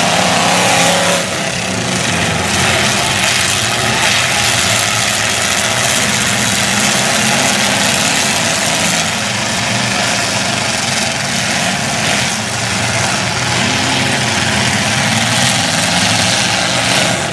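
Several demolition derby cars' engines running and revving together, a loud, continuous engine din.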